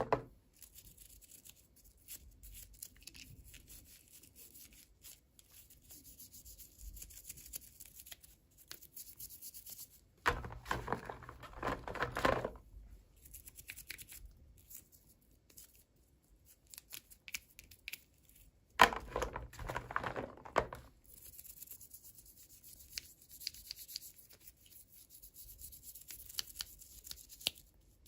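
Hands handling and tearing open toy packaging: faint clicks and rustles, with two louder tearing, crinkling passes of about two seconds each, one about ten seconds in and one near nineteen seconds.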